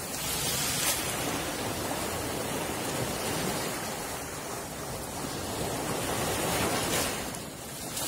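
Sea of Azov surf: rough waves breaking and foaming onto the shore in a steady wash.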